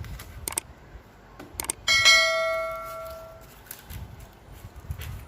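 A few light clicks, then a single metallic strike about two seconds in that rings out with several clear tones and dies away over about a second and a half.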